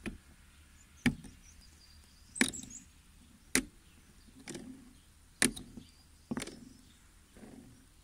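A washing machine drain pump's impeller being turned by hand, its magnetic rotor snapping round with sharp plastic clicks about once a second. The resistance and clicking are the 'compression' that a working pump should have.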